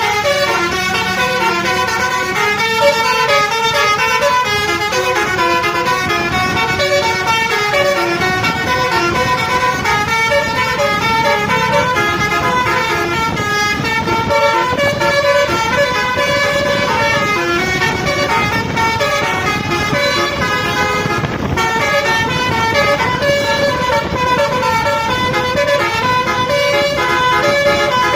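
Basuri musical bus horn on an RJB Trans coach playing a continuous 'telolet' melody. Its multi-tone horn notes step up and down in pitch without a break.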